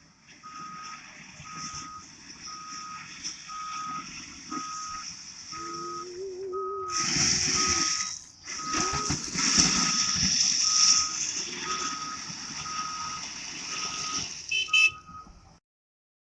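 Excavator's travel alarm beeping steadily about twice a second over its running diesel engine, which works harder and louder for a few seconds midway; the sound cuts off suddenly near the end.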